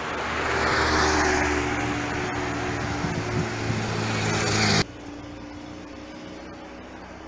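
A motor vehicle driving past close by on the street: engine hum and road noise swell to a peak about a second in and hold, then cut off abruptly, leaving quieter steady street noise.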